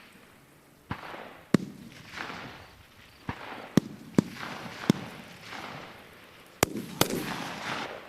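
Single shots from 5.56 mm service rifles (M4 and M27) on a qualification range, about eight of them at irregular intervals and at differing loudness, each followed by a rolling echo.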